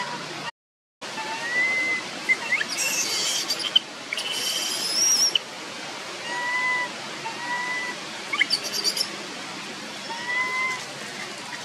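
Young long-tailed macaque giving short, plaintive coo calls over and over, each a slightly arched note of about half a second, with bursts of shriller squeaks in between: the distress calls of a baby whose mother has stopped nursing it. The sound drops out completely for half a second near the start.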